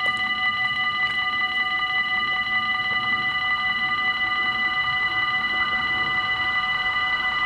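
Dutch level-crossing warning bells ringing continuously and rapidly as a steady, ringing multi-tone clang, signalling that the barriers are down and a train is coming. Near the end the noise of the approaching train starts to rise under the bells.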